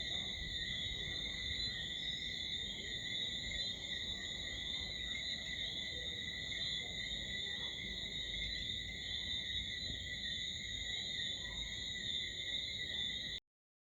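Night chorus of crickets and other insects: a steady, unbroken shrill trilling on several high pitches at once, over a low rumble of background noise. It cuts off abruptly near the end.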